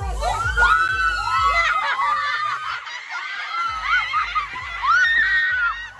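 A group of people shrieking and laughing excitedly, many high voices overlapping, over background music with a steady beat that drops out for about a second in the middle.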